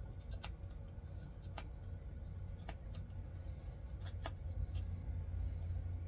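Knife carving into a wooden stick: about five short, sharp cuts, roughly one a second, over a steady low rumble that grows louder near the end.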